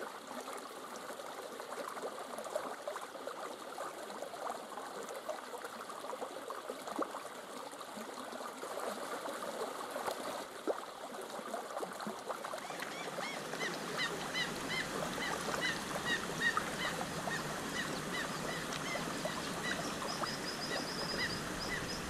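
Charcoal crackling in a chimney starter, a steady run of small sharp pops and crackles. About twelve seconds in this gives way to birds calling: a short chirp repeated about twice a second, with a fast high trill near the end.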